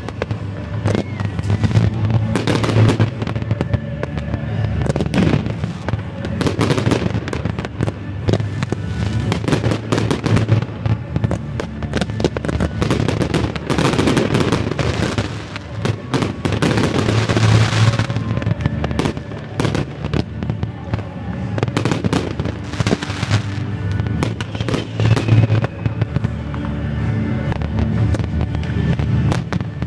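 Fireworks display: aerial shells bursting with many bangs in quick succession, and a longer stretch of hissing, crackling sparks a little past halfway. Music plays along with the display throughout.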